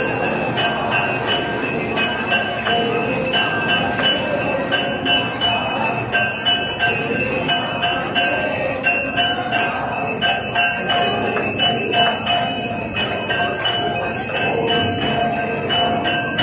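Temple bells rung continuously in rapid, repeated strikes, their ringing tones held steady over the hubbub of a dense crowd.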